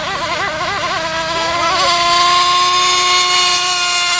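Gas-engined RC speedboat's two-stroke engine running on a high-speed pass. Its pitch wobbles rapidly for about the first second, then settles into a steady high whine at full throttle.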